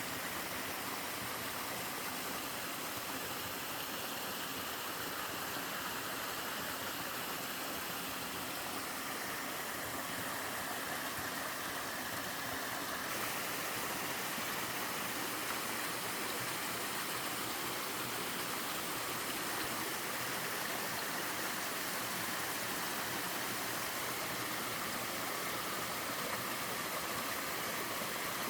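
Twin small waterfalls in a mountain stream: a steady, even rush of falling water, a little fuller about halfway through.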